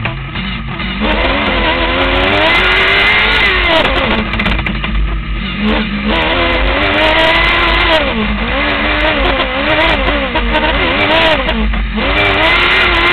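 Formula SAE race car's engine heard from on board, revving up and falling back again and again as the car accelerates and lifts off through an autocross course, its pitch climbing and dropping several times.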